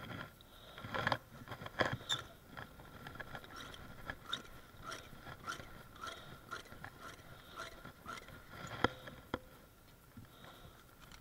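A hand duster puffing dust into the entrance of a bald-faced hornet nest: an irregular string of short puffs and clicks.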